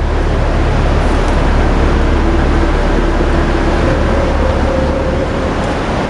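Steady rush of a nearby waterfall: a loud, even noise of falling water with a deep rumble underneath.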